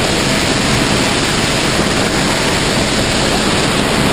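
Loud, steady rush of wind battering the microphone in freefall after the exit from the helicopter.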